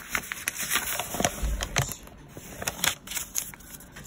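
Paper pages and inserts of a handmade junk journal being handled and turned: irregular crackling and rustling, with a soft low bump about a second and a half in.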